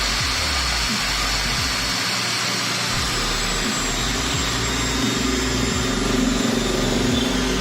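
Electric angle grinder motor running steadily with a high whine that slowly drops in pitch, as its speed is turned down through a homemade speed controller.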